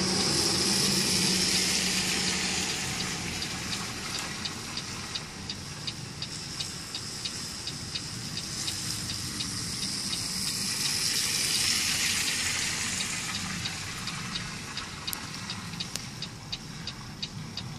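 Steady hiss of vehicle traffic and engines, loudest at the start and swelling again about halfway through, with a light ticking about twice a second from a few seconds in.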